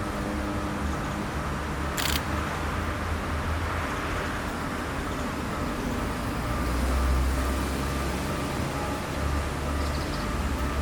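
Japanese level-crossing warning bell ringing in a steady repeating tone over a low rumble that swells about two-thirds of the way through, with one sharp click a couple of seconds in.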